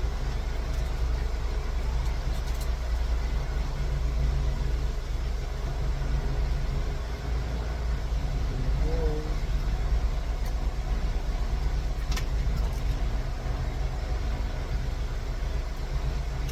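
Steady low mechanical hum, like an idling engine, with a few faint light clicks scattered through it.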